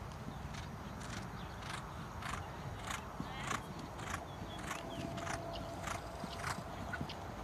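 Grey mare cantering on sand footing, one stride sounding about every 0.6 seconds in an even rhythm.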